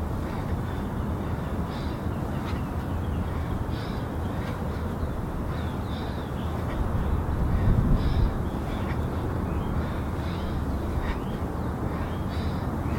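Steady outdoor background rumble with short, high bird calls at irregular intervals of about a second. The rumble swells briefly about eight seconds in.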